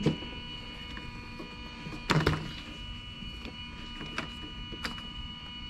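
Idle air control valve of a Lexus GS300 making a steady electrical whine with the key out of the ignition. A few light clicks and one louder thump come about two seconds in. The owner takes the whine for normal but suspects something is drawing power.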